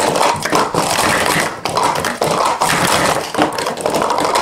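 Plastic sport stacking cups being rapidly stacked and unstacked on stack mats: a fast, continuous clatter of cups clicking against each other and tapping down on the mat.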